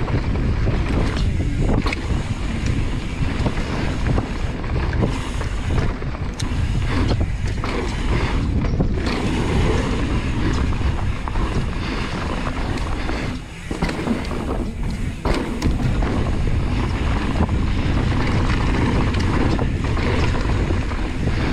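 Mountain bike riding fast down a dry dirt trail: wind rushing over the action camera's microphone, tyre rumble on the dirt, and frequent knocks and rattles from the bike over bumps. The noise drops briefly about two-thirds of the way through.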